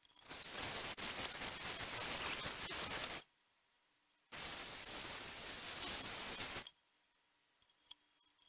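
Handheld power sander running against the fiberglass hull at the keel, switched on twice for about three seconds and two and a half seconds with a quiet gap between; the sound is sped up.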